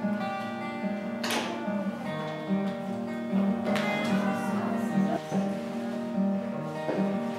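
Background music of a plucked guitar picking a slow run of notes, with a few stronger strums.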